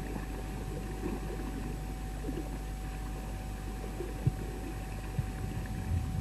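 Steady on-board sound of a small sailing catamaran under way: a low rumble of wind and water with a faint steady tone, and a few soft knocks in the second half.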